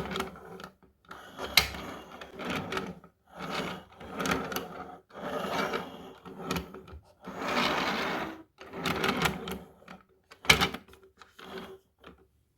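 Toy packaging being handled and opened by hand: bursts of rustling and crinkling with short pauses between, and a couple of sharp clicks, the loudest about ten seconds in.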